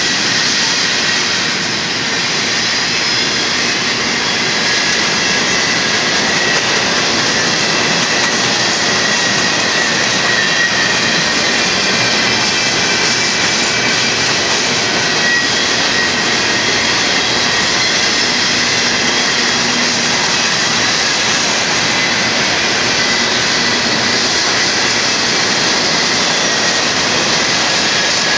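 A Union Pacific freight train's boxcars and empty flatcars rolling past: a loud, steady roar of steel wheels on the rails, with faint high-pitched tones running through it.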